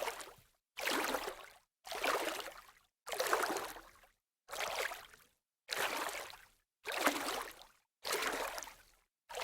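Light water splashing: a series of separate splashes about one a second, each a short swish that starts sharply and fades out, with silence between them.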